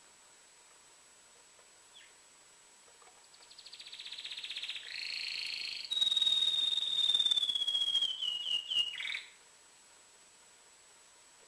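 Male canary in excited breeding song, one phrase of about six seconds: a rapid trill that swells in loudness, then a long whistled note falling slowly in pitch over a fast rattle, ending in a few quick notes. A single faint chirp comes about two seconds in.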